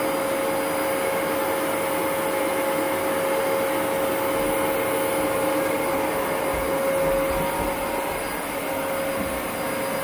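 Dyson upright vacuum cleaner running steadily: a constant motor hum with one steady mid-pitched tone over the rush of air, dipping slightly near the end.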